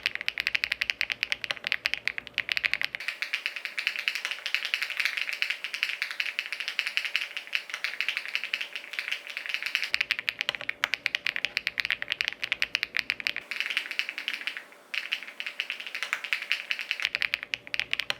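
Fast, continuous typing on the Evoworks EVO80 custom mechanical keyboard: a dense stream of keystroke clacks, broken briefly about fifteen seconds in.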